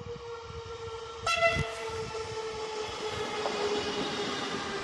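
Coupled SNCF TER 2N double-deck electric multiple units running into the station: a short horn blast about a second in over a steady electric whine that sinks slightly in pitch, then rolling noise building as the carriages come alongside.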